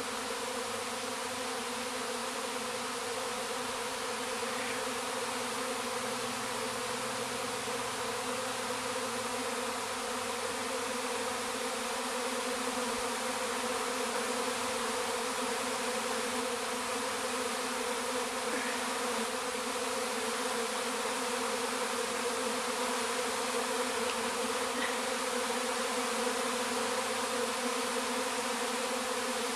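A honeybee swarm buzzing: a steady hum from many bees flying around the cluster as it settles.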